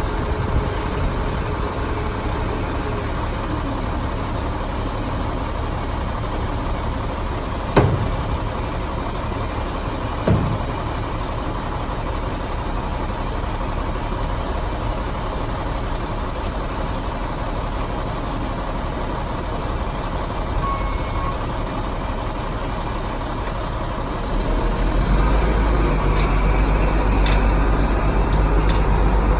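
2000 Kenworth T800 dump truck's diesel engine running steadily while the dump body is lowered, with two short, sharp sounds about eight and ten seconds in. Near the end the engine gets louder and deeper as the truck pulls away.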